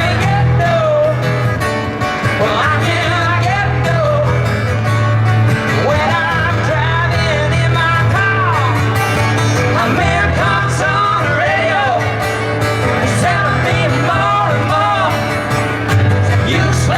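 Music: a singing voice over guitar and a steady bass line.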